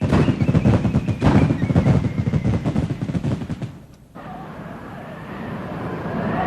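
About four seconds of dense, rapid crackling pops like a string of firecrackers. They cut off, and strong wind takes over, howling and rising in pitch.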